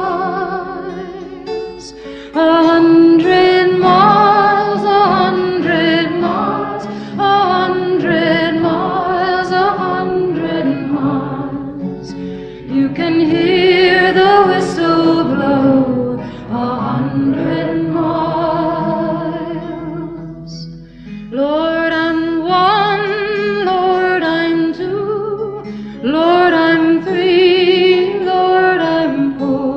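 Background music with a singing voice, sung in phrases a few seconds long with vibrato.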